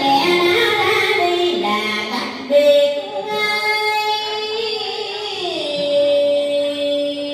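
A woman singing a slow Vietnamese ritual lament (hát tế) into a microphone, amplified. The phrases are drawn-out held notes stepping between pitches, settling into one long held lower note in the second half.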